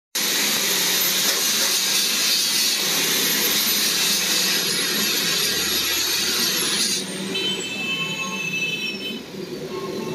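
Handheld angle grinder running against metal, a steady high whine over harsh grinding noise. About seven seconds in it is switched off and the whine falls steadily in pitch as the disc spins down.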